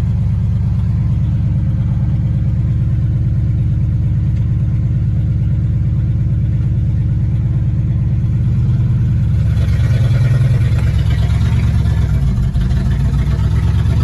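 1954 Ford Customline's engine running steadily while the car is driven. About nine or ten seconds in, it gets louder, with a rush of higher noise over the engine.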